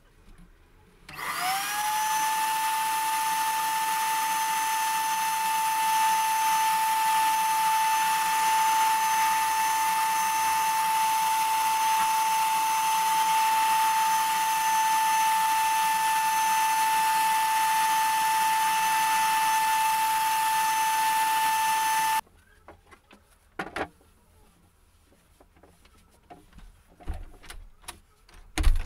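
Small electric power tool motor spinning up, running steadily with a strong hiss and a steady whine for about twenty seconds, then switched off abruptly; a few small knocks follow.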